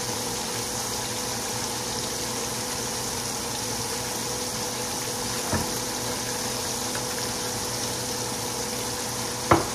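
Breaded pork chops frying in a skillet of hot oil, giving a steady sizzle over a faint low hum. Two brief knocks come through, one about halfway and a louder one near the end.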